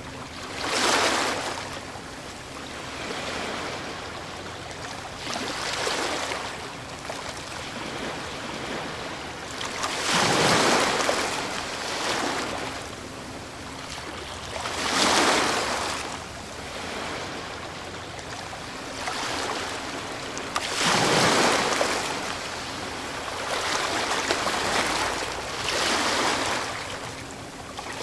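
Ocean waves breaking on a shore, each crash rising and washing out over a second or two, about one every four to five seconds, over a steady hiss of surf.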